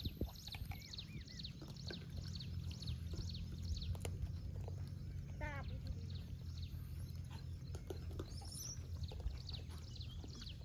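Outdoor ambience of small birds chirping in quick, repeated short notes over a steady low rumble, with scattered faint clicks and one brief warbling call about halfway through.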